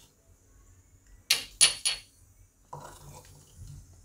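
Metal spoon clinking against a bowl three times in quick succession as ground ginger-chilli paste is knocked out, followed by quieter scraping.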